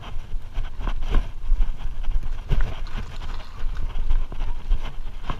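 Trek mountain bike rolling fast over a rough dirt trail: irregular knocks and rattles as it hits bumps, over a steady low rumble.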